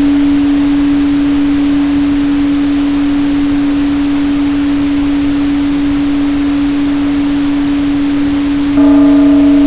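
A steady synthetic 285 Hz sine tone over a constant pink-noise hiss. Near the end the sound gets slightly louder and a set of higher ringing overtones comes in above the tone.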